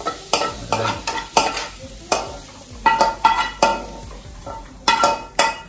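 Metal spoon scraping and knocking against a frying pan as strips of carrot and onion are stir-fried over a light sizzle, in a quick run of sharp clicks and scrapes. Near the end the pan is tipped and the vegetables are scraped out into a metal bowl.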